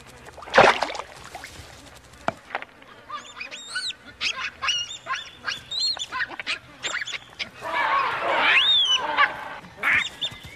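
A sudden loud crash about half a second in as a crocodile lunges, then baboons screaming over and over in shrill cries that rise and fall, harshest near the end, as one baboon is seized in the mud.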